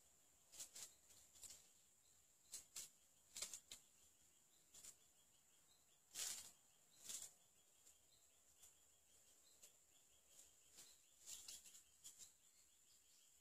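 Quiet forest ambience: a steady faint high-pitched drone, with scattered brief high sounds, the loudest about six and seven seconds in.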